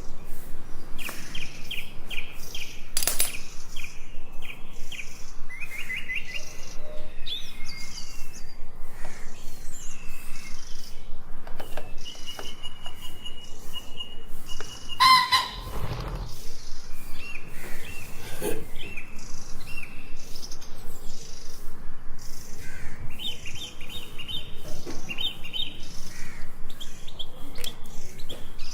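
Small birds chirping in short, repeated phrases over a fast, even run of short strokes, about three a second, with one louder sound about halfway through.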